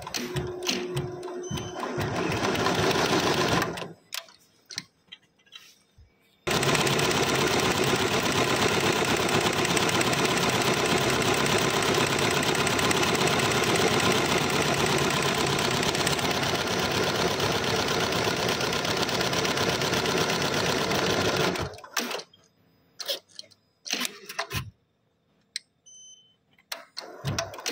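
Richpeace computerised embroidery machine stitching at speed, a fast, even clatter of the needle bar. It runs steadily for about fifteen seconds, then stops suddenly. Scattered clicks come before and after it.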